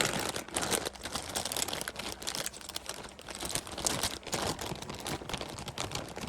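Irregular crinkling and rustling of packaging and cables being rummaged through by hand, as a power cable is fetched.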